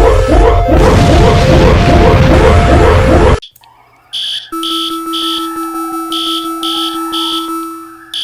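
Emergency-alert-style alarm tones. A loud, harsh, pulsing alarm repeating about two or three times a second cuts off abruptly about three and a half seconds in. After a brief gap a new alarm starts: a steady two-tone drone with a slowly sweeping tone and rapid high beeps.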